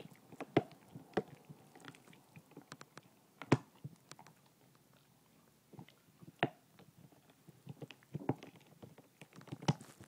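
Basset hound gnawing on a bone: irregular teeth clicks and crunches, with a few louder sharp cracks spread through.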